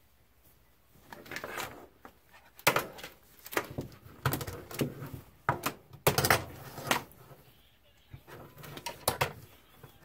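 Hard plastic knocks and clatter as an Arrma Outcast 6S rolling chassis with its A-arms is picked up, turned over and set back down on a workbench. An irregular string of sharp knocks begins about a second in.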